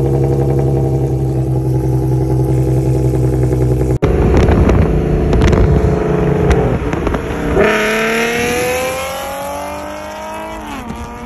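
Lexus IS350's 3.5-litre V6 through an aftermarket exhaust: a steady drone at constant engine speed, then, after an abrupt cut about four seconds in, uneven engine sound. About seven and a half seconds in comes a long rising pull as the car accelerates, which falls away near the end.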